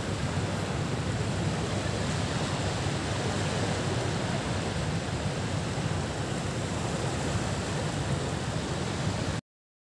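Steady rushing noise of wind on the microphone and calm water at the shore, with no voices. It breaks off into complete silence for about half a second just before the end.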